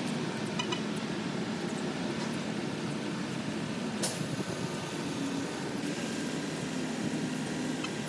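Steady hum of city street traffic, an even rumble of vehicles with no distinct events, and one faint click about four seconds in.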